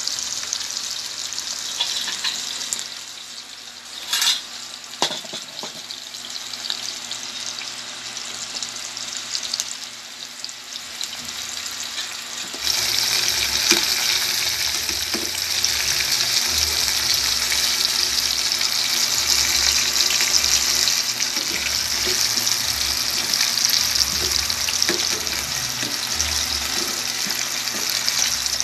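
Chicken pieces frying in oil in a stainless steel pot, a steady sizzling hiss that becomes clearly louder about halfway through. A single knock sounds about four seconds in.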